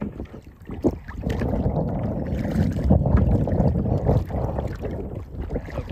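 Kayak being paddled on open water, with a heavy rumble of wind on the microphone that swells through the middle and eases near the end. There is a sharp knock about a second in.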